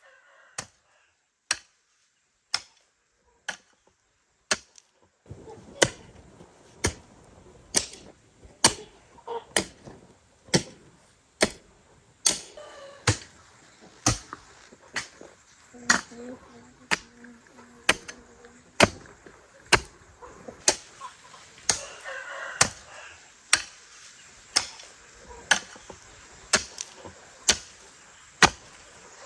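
A steady series of sharp knocks or strikes, about one a second, each stroke evenly spaced.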